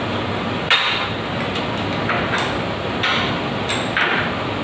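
Steel chisel scraping and tapping at the broken pipe thread stuck inside a wall water outlet, in uneven strokes about once a second, over a steady hiss.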